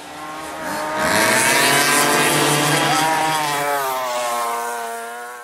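A high-revving engine starts suddenly, builds over the first second, holds at high revs with small rises and falls in pitch, then fades away near the end.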